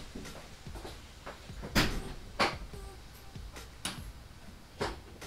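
Four or five separate short knocks and clicks, irregularly spaced, over faint room noise, from a person moving about and handling things in a garage.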